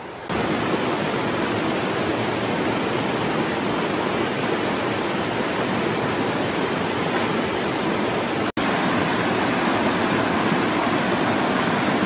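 Steady rushing of a mountain waterfall and stream, cutting in suddenly just after the start, with a split-second gap about eight and a half seconds in.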